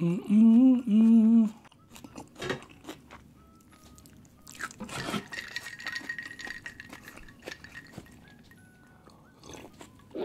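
A person humming a short three-note phrase with closed lips, then quiet eating sounds: soft mouth clicks and chewing with light taps of cutlery and dishes.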